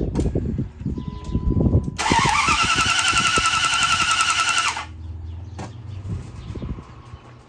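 Starter motor cranking the 5.9-litre Magnum V8 for about three seconds without it firing, its whine rising as it spins up, to take a compression reading with fuel and ignition disabled. It starts about two seconds in, after some soft knocks, and stops suddenly.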